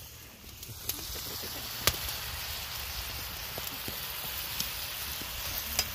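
Sliced mushrooms and onions sizzling in butter in a cast iron pan over an open fire, a steady hiss that swells in about half a second in. A few sharp pops or clicks stand out, the loudest about two seconds in.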